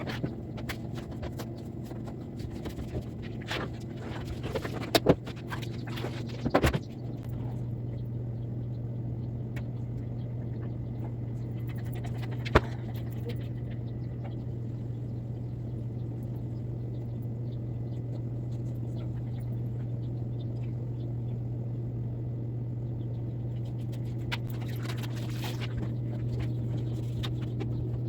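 A steady low hum runs underneath, growing a little stronger about seven seconds in. Over the first seven seconds come knocks and clatter of objects being handled, with one sharp click about halfway through and some rustling near the end.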